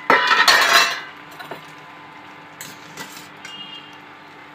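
A stainless steel plate-lid scrapes and clatters as it comes off a steel pot in the first second. A few light clinks of a steel spoon against the pot follow.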